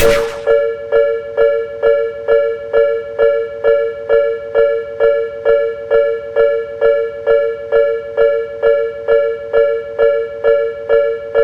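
Japanese level-crossing warning bell ringing its 'kan-kan' alarm, the sign that a train is approaching. It is a two-tone electronic clang struck evenly about twice a second.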